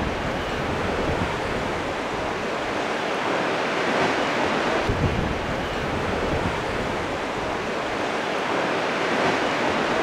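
Sea surf rushing and washing over a rocky shoreline ledge in a steady roar of breaking water, swelling a little about halfway through.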